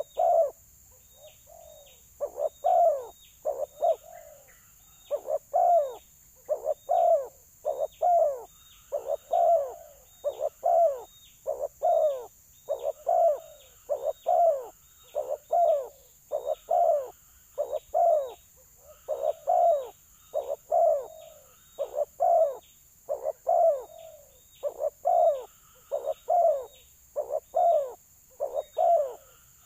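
Spotted doves (balam) cooing repeatedly in a territorial calling contest, a fighting dove answering a decoy bird. The short, descending coos come in quick phrases about every second, with brief pauses between groups.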